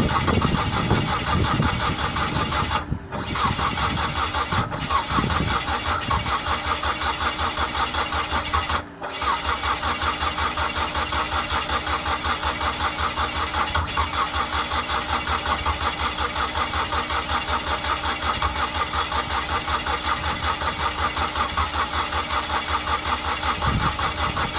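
Mazda Familia Sport 20 engine being cranked over by its starter motor, an even rhythmic churning of about four to five beats a second that never catches. It breaks off briefly twice, about 3 and 9 seconds in, then carries on: the crank-but-no-start fault, which was traced to the engine having lost its timing.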